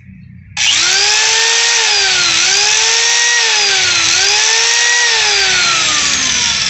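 Makita-branded corded angle grinder switched on about half a second in, its motor whining over a hiss from the spinning disc. The pitch sags twice as the disc is held to the table frame. Then it is switched off and winds down, the whine falling steadily.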